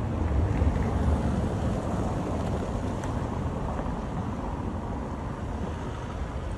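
Wind rumbling on a phone's microphone outdoors, a steady low roar that eases slightly toward the end.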